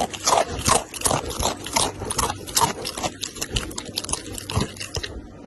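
A pet animal making a quick, irregular run of short crackling sounds, several a second, louder in the first half.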